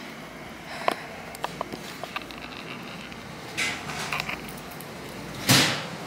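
Scattered light clicks and taps of things being handled, with a short, loud rush of noise about five and a half seconds in.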